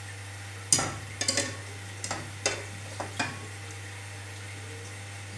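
A metal tea strainer knocking and clinking against glass cups, about six sharp clinks in the first few seconds, over a steady low hum.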